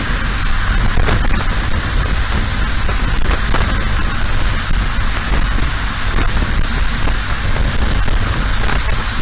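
Loud, steady rushing noise of wind and rain on the microphone of a motorcycle riding at speed in the rain, with a heavy low rumble underneath.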